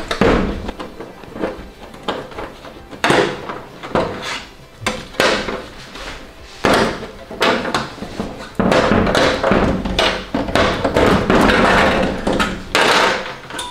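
A screwdriver prying glued LED backlight strips off a TV's sheet-metal back panel: irregular knocks and scraping of the strips and the tool against the metal, turning into a longer run of continuous scraping about two-thirds of the way in.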